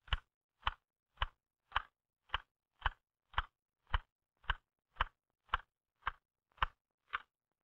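Typewriter keys struck one at a time at a slow, even rhythm of about two strokes a second, fourteen sharp clacks of the type bars. It is a typing drill done with two fingers of each hand in an alternating figure-8 pattern across the three rows of keys.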